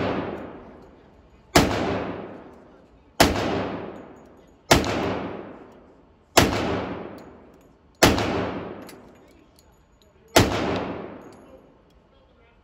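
Six handgun shots fired one at a time, about a second and a half apart with a slightly longer pause before the last, each ringing off in a long echo off the walls of an indoor range.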